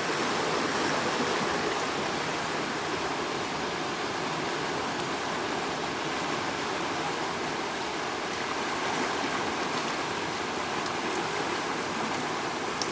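Steady rushing noise of flowing floodwater, with no change in level.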